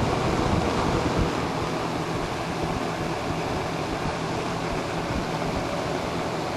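Vintage 1970s Lakewood S-122 12-inch box fan running on low speed: a steady rush of moving air with a faint motor hum underneath.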